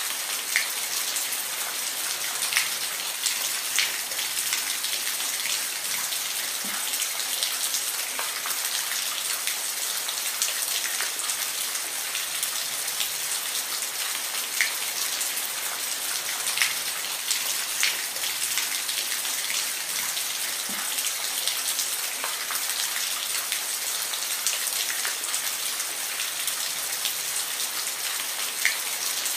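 Steady rain with individual drops ticking close by on a hard surface, at an even level.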